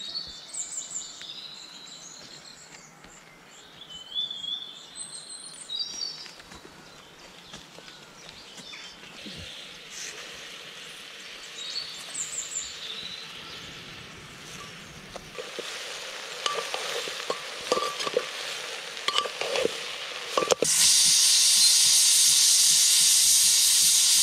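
Birds chirping faintly and utensils clinking and scraping as food is stirred in a pan. About twenty seconds in, a loud, steady sizzle starts abruptly as food hits hot oil and begins frying.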